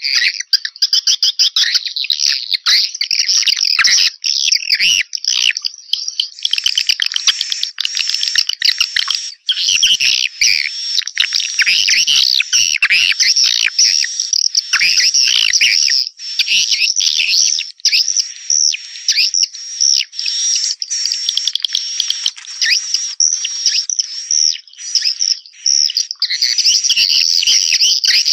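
Swiftlet lure call: a dense, unbroken chorus of rapid high chirps and twitters from edible-nest swiftlets. It is a recording played from swiftlet houses to draw the birds in to roost and nest.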